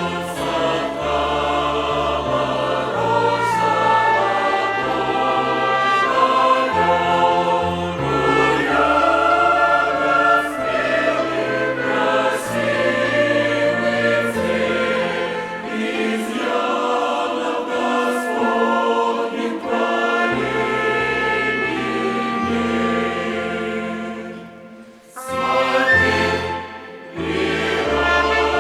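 Church choir singing a hymn with a violin orchestra, sustained chords over changing bass notes. The music drops out briefly near the end, then comes back in.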